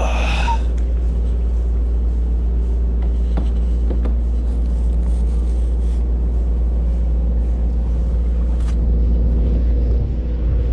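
A moored ship's machinery running with a steady, loud low hum that holds an even pitch.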